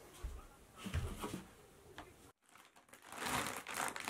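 A few soft thumps, then, starting about three seconds in, the rustle and crinkle of a clear plastic bag as a pet bed is pulled out of it.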